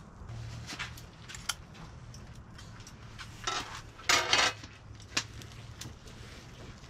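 Cutlery and cookware clinking and knocking in short scattered clicks, with a louder noisy clatter a little after three and four seconds in, over a steady low hum.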